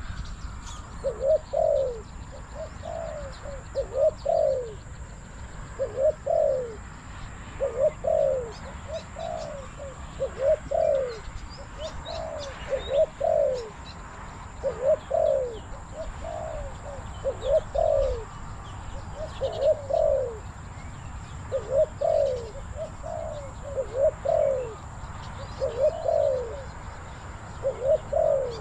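Spotted dove cooing repeatedly: short falling coos in groups of two or three, about one phrase every two seconds. Faint chirps from small birds sit behind it.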